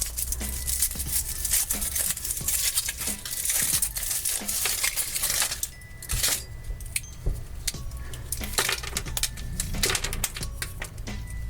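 Foil wrapper crinkling and rustling as a chocolate surprise egg is unwrapped and broken open, with many small sharp clicks and cracks.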